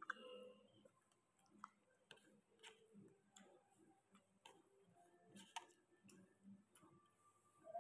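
Faint, irregular mouth clicks and smacks of someone chewing food eaten by hand, with no steady rhythm.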